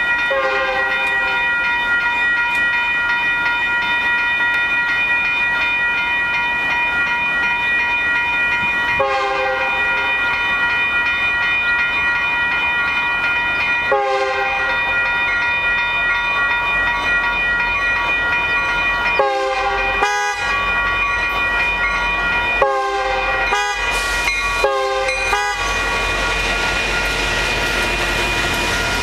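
Railroad crossing bell ringing steadily while a Union Pacific SD70M diesel locomotive sounds its horn for the grade crossing in a series of blasts: three longer ones several seconds apart, then shorter, quicker ones from about twenty seconds in. Near the end the locomotive's low rumble builds as it reaches the crossing.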